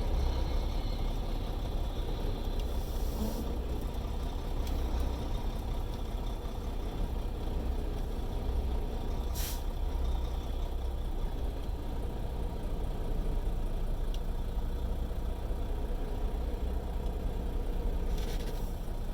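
Semi-truck's diesel engine running with a steady low rumble, heard from inside the cab during slow parking manoeuvres, with short hisses of air from the air brakes about three seconds in, around nine seconds, and near the end.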